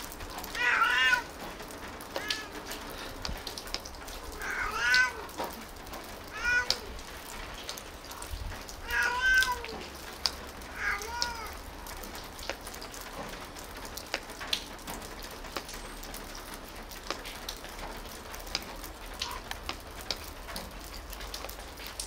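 Domestic tabby cat meowing repeatedly, about six meows in the first eleven seconds, the loudest near the start, around five seconds in and around nine seconds in. After that the cat falls quiet, leaving only faint scattered ticks.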